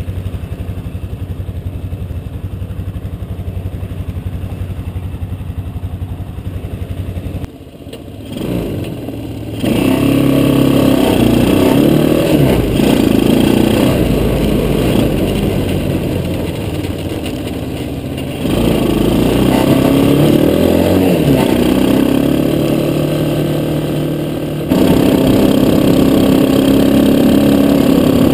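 Quad bike (ATV) engine running steadily for the first seven seconds, then, after a short dip, louder as it pulls away, its revs rising and falling as it is ridden. It settles into a steady higher note near the end.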